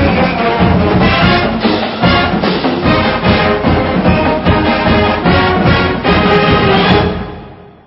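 Background music with brass and a steady beat, fading out near the end.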